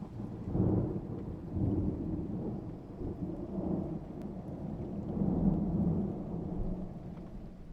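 Rumbling thunder rolling in several low swells, the biggest about five seconds in, then dying away near the end, with faint steady rain beneath.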